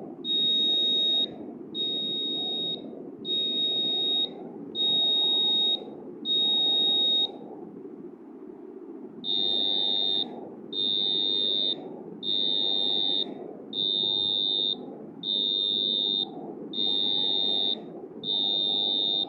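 Arduino buzzer module driven by the tone() function, giving a steady high-pitched beep about a second long, repeated roughly every one and a half seconds. There is a two-second break a little before the middle, and the beeps after it are slightly quieter.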